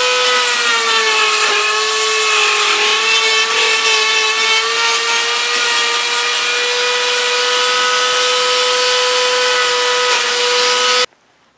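Flex-shaft rotary tool with a small sandpaper bit running inside a two-stroke chainsaw cylinder's exhaust port, smoothing the port. A steady high whine that sags slightly in pitch a couple of seconds in, then holds and stops abruptly near the end.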